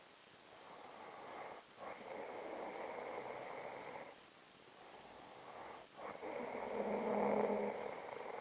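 A woman snoring in her sleep, one breath after another: a loud snore starting about two seconds in, a quieter breath, then a louder snore near the end with a low buzzing tone in its middle.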